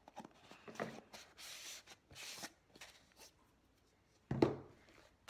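Cornstarch shaken out of a plastic container into a plastic bowl: light clicks and taps with two short soft hissing pours, then a duller thump near the end.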